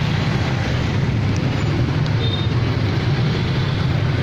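Steady low noise of street traffic, even throughout, with a brief faint high tone about two seconds in.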